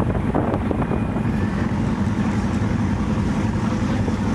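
Loud, steady low rumble of drag-racing car engines running at the strip, with wind buffeting the microphone.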